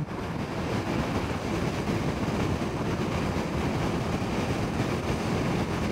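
Steady wind rush and road noise from a 2022 Honda CB500F parallel-twin motorcycle cruising at about 60–70 mph, with the engine's steady drone underneath.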